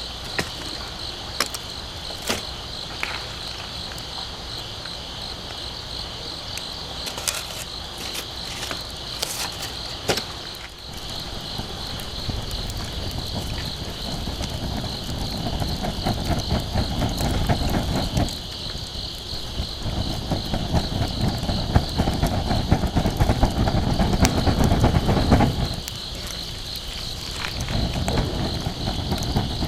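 Insects chirring in one steady high-pitched band, with a campfire crackling in occasional sharp pops. From about a third of the way in, long stretches of low rushing noise swell over them.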